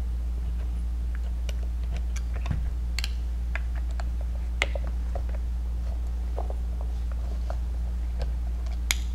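Faint, scattered small clicks and ticks as a 3 mm Allen key loosens the screws in the grip frame of an Azodin Kaos paintball marker, with a slightly sharper click near the middle and another near the end, over a steady low hum.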